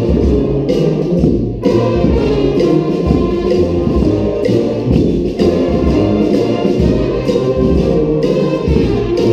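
Brass street band playing together: trumpets, trombones and other horns over a steady beat.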